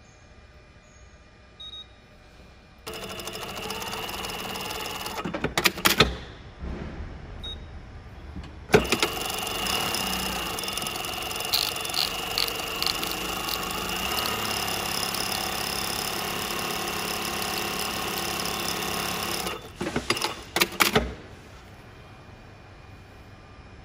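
Brother Z-8560A industrial zigzag lockstitch machine sewing at speed in two runs: a short one from about three seconds in and a longer one from about nine seconds. Each run ends in a quick cluster of sharp clicks as the machine stops.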